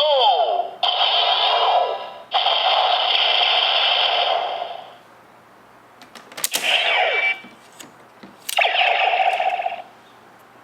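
DX Neo Decade Driver toy belt playing electronic finisher sound effects through its small speaker, with falling sweeps, for the first five seconds. A few sharp clicks come about six seconds in as the belt is worked, and two shorter effects follow.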